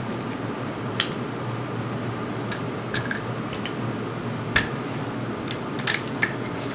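AR-15 rifle being field-stripped by hand: about half a dozen sharp metallic clicks and clacks spread through, over a steady low hum.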